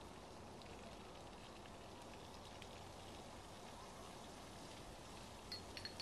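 Wood fire in a fire pit crackling faintly over a steady low hiss, with a few sharper pops near the end.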